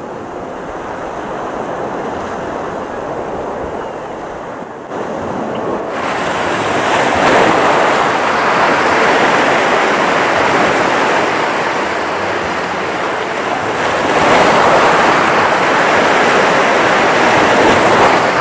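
Sea waves breaking and washing over rocks close by, a steady rush of surf that gets louder about six seconds in and swells twice.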